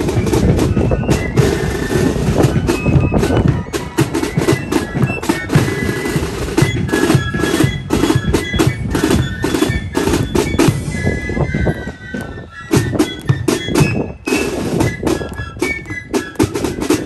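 Marching band playing a march: snare drums rattling with rapid strokes and a bass drum beating under a high melody line.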